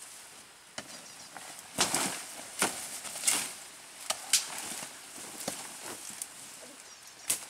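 Leaves, ferns and stems rustling in irregular bursts as a person pushes through dense undergrowth and pulls at plants, with a few sharp snaps.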